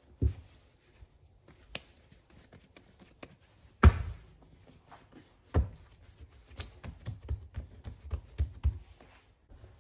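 Bread dough thudding onto a floured countertop as it is shaped by hand, the loudest thump about four seconds in. Near the end comes a run of light, irregular knocks as a wooden rolling pin rolls the dough out.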